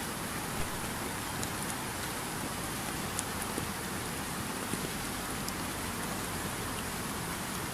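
Steady rain falling, a constant hiss with scattered sharp drop ticks.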